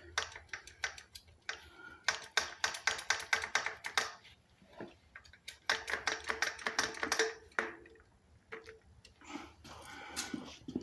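Two runs of rapid, light mechanical clicking, each lasting about a second and a half to two seconds, with a faint ringing tone under them, from hand work on the motorbike's freshly lubricated control cable.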